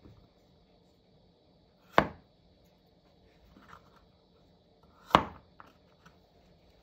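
Kitchen knife chopping through a carrot onto a wooden cutting board: two sharp chops about three seconds apart, with a few faint knocks of the carrot and knife on the board in between.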